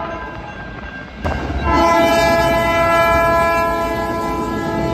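Train air horn sounding a steady chord of several notes: one blast is dying away at the start, and after a short break about a second in, a second long blast begins and holds steady, over the noise of the moving train.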